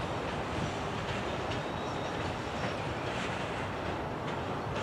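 Loaded wood chip gondola cars of a freight train rolling slowly on the rails: a steady rumble of wheels on track with irregular clicks.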